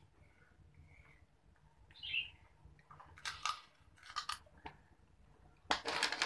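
Crunchy snack being bitten and chewed close to the microphone: a few short, crisp crunching bursts in the second half, the last cluster the loudest.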